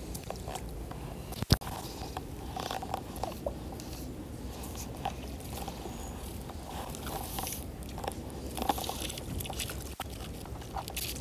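Close handling noise: hands and clothing rustling and scraping while working fly line, with one sharp knock about a second and a half in, over the steady rush of a small flowing creek.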